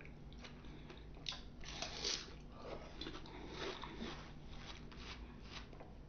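A person biting and chewing fresh fruit: quiet, irregular bites and chewing noises.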